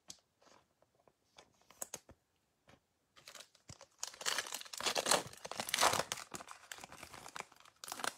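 The foil wrapper of a football trading-card pack being torn open and crinkled by hand, starting about three seconds in. Before that there are only a few faint ticks of cards being handled.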